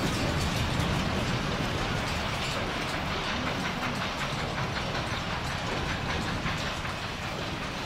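Earthquake shaking: a continuous low rumble with rapid rattling and clattering, easing slightly near the end.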